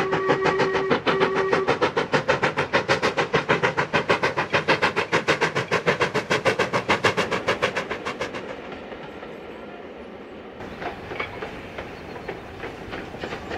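Black 5 steam locomotive working a train, its exhaust beating in a fast, even chuff of about five beats a second. A steam whistle sounds at the start, broken by a short gap. The chuffing fades after about eight seconds, and a fainter beat of chuffs is heard near the end.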